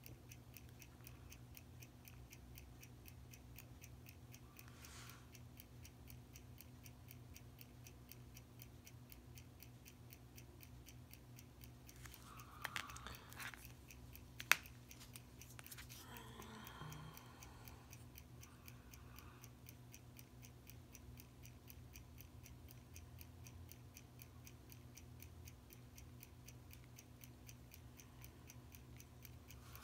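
Faint, fast, even ticking of a timepiece, several ticks a second, over a low steady hum. A single sharp click comes about halfway through, with soft handling noises around it.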